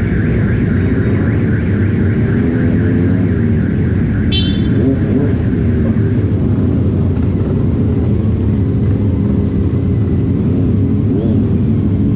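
Yamaha R15's single-cylinder engine running through an aftermarket exhaust tuned to sound like a four-cylinder, steady with small wavers in pitch from light throttle. A brief high-pitched tone sounds about four seconds in.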